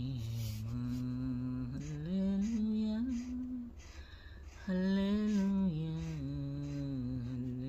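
A woman singing a slow Telugu Christian hymn alone, holding long drawn-out notes that glide gently between pitches. A low steady hum runs underneath.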